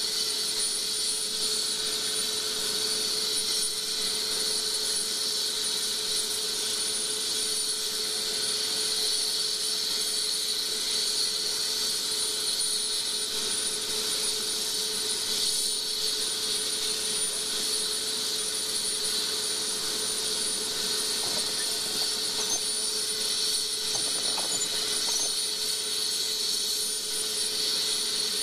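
Steady engine noise with a constant high-pitched whine, unchanging throughout.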